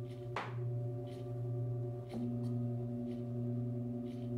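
Singing bowls ringing in several layered, sustained tones. A brief falling swish sounds about half a second in, and a new lower tone joins a little after two seconds.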